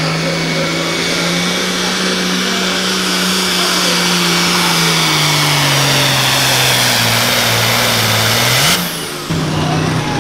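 Turbocharged diesel engine of a red International Harvester Pro Farm pulling tractor at full throttle under sled load, with a steady turbo whistle; the engine note slowly sinks as the sled loads it down. About nine seconds in it flares up and cuts off abruptly, and another tractor's engine comes in.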